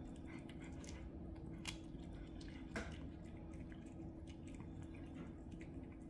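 Two cats chewing and biting raw chicken frames: wet squishing of meat mixed with small crackling clicks of bone, and two sharper cracks about a second and a half and three seconds in. A faint steady hum lies underneath.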